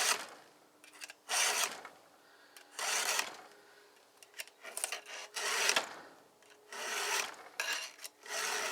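Chainsaw chain being sharpened by hand with a file: a series of separate rasping file strokes across the cutters, roughly one a second.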